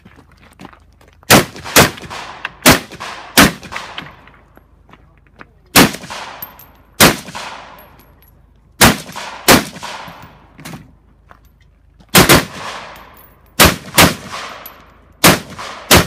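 Rifle shots during an IPSC rifle stage, about fourteen of them, mostly fired in quick pairs with pauses of a second or two between the pairs. Each shot has a trailing echo.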